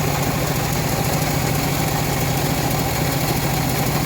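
Engine of a homemade bandsaw mill running at a steady, unchanging speed, a constant low drone.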